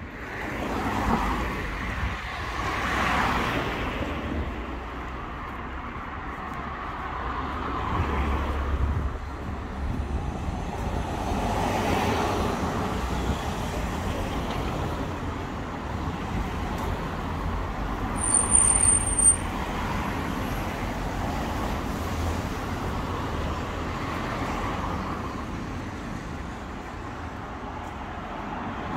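Road traffic, cars passing one after another on a town street, with a brief high-pitched squeal about two-thirds of the way in.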